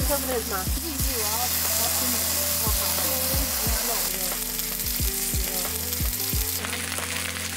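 Slices of raw beef, cocktail sausages and then pork belly sizzling steadily on a hot round griddle pan, turned now and then with tongs. Background music with a regular beat plays underneath.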